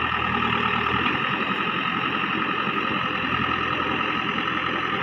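JCB 3DX backhoe loader's diesel engine running steadily while digging, with a steady high whine over it; the low engine hum drops back about a second in.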